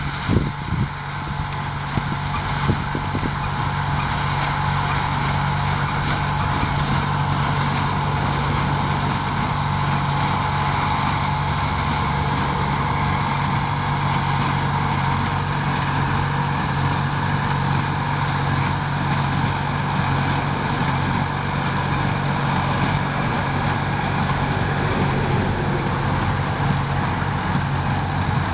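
Engine of a horse-drawn New Holland Hayliner 69 hay baler running steadily while the baler works.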